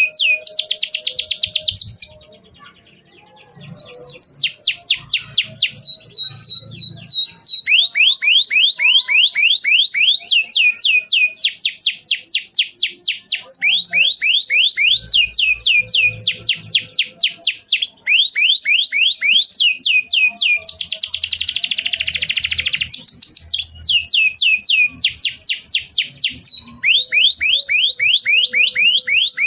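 Domestic canary singing a long, continuous song of rapid trills: quick runs of repeated falling whistled notes, with a brief pause about two seconds in.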